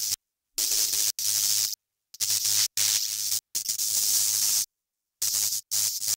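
Choppy bursts of static-like hiss with a low hum under them. The sound cuts in and out abruptly into dead silence about eight times.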